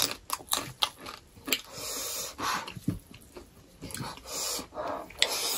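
Close-miked mouth sounds of people chewing rice and pork curry, with many short sharp clicks at irregular intervals.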